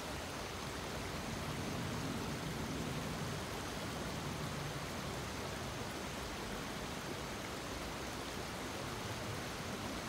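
The Bronx River rushing over rocks in a shallow riffle: a steady, even wash of running water.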